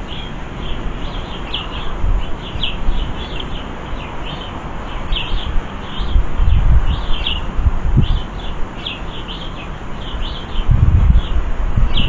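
Small garden birds giving short, high chirps in quick succession. Bursts of low rumble come about six seconds in and again near the end.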